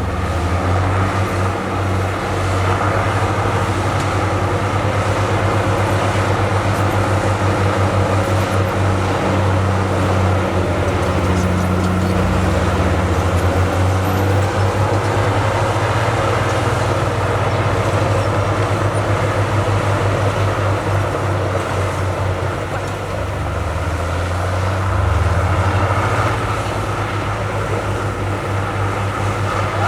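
Heavy diesel engine of earthmoving equipment running steadily under work, a deep low hum over mechanical noise, easing off briefly then rising again near the end.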